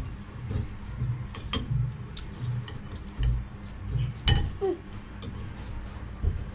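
Metal spoons clinking against plates during a meal, with one sharper clink a little past four seconds in. Soft, low chewing sounds repeat between the clinks.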